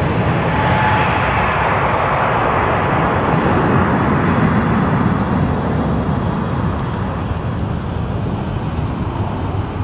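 Airbus A350 jet engines (Rolls-Royce Trent XWB) running on the runway as the airliner rolls past: a loud, dense rushing roar that slowly fades as the aircraft moves away.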